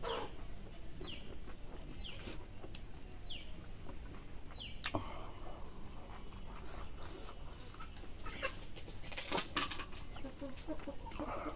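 A bird calling in short falling peeps, about one a second, through the first five seconds, with close-up eating sounds: chewing, mouth smacks and fingers working rice on a wooden plate, giving a run of sharp clicks in the later half.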